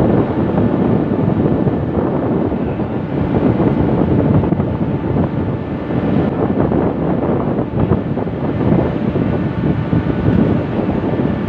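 Steady wind buffeting the microphone, a loud even rumble with no distinct events.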